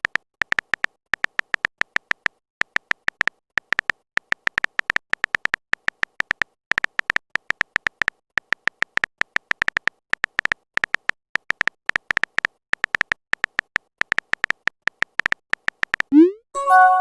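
Phone keyboard typing sound effect: rapid short clicks in irregular runs. Near the end comes a short rising swoop, then a chime of several tones, a message-notification sound.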